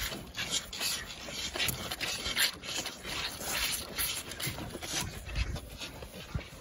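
Calves sucking milk from the rubber teats of a multi-teat calf feeder: rapid, irregular slurping and rasping, with a few low thumps about five seconds in.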